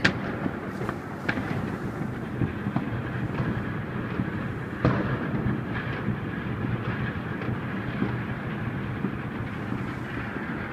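Massed fireworks and firecrackers going off across the city in a continuous rumble and crackle, with a few louder bangs: one at the start and one about five seconds in.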